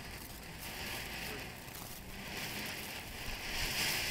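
Electrical Shock ground fountain firework spraying sparks with a steady hiss, growing louder near the end as the spray builds.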